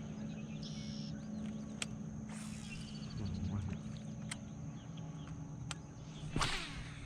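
Boat-side outdoor ambience: a steady low hum with a faint steady high tone over it, a few light clicks, and two short swishes, about two and a half seconds in and near the end, the second the louder.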